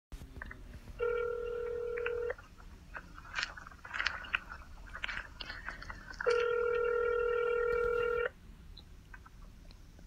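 Telephone ringback tone of an outgoing call ringing out, picked up from a device's speaker: a shorter steady ring about a second in and a two-second ring about six seconds in, with faint clicks and rustling between the rings.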